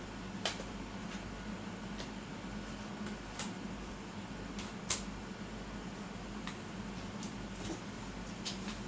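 Steady low hum with a few sharp, light clicks scattered through it, the loudest about five seconds in.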